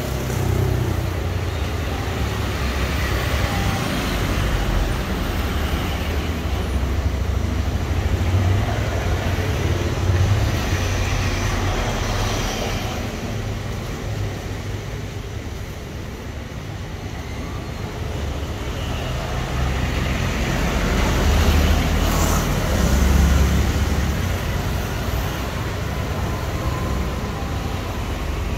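Passing road traffic rumbling, swelling and fading as vehicles go by, with the loudest pass about three-quarters of the way through, over a steady hiss of banana fritters deep-frying in a wok of oil.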